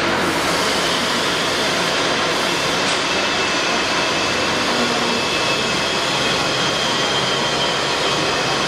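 Steady, loud noise of running factory machinery, an even rushing hiss with no pauses, with a faint high whine coming in about three seconds in.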